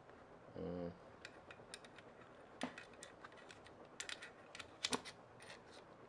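Small, sharp, irregular clicks and taps of a quick-release plate being handled and slid into the DJI RS 3 Mini gimbal's base-plate clamp.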